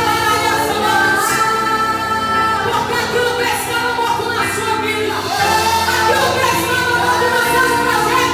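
A Christian praise song sung by female voices over sustained musical accompaniment.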